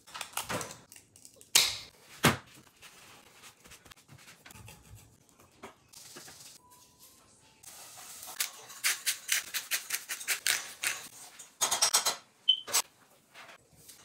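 Gloved hands handling and seasoning a whole red snapper on a bamboo cutting board: scattered knocks and taps, then a run of rapid ticks and rattles in the second half.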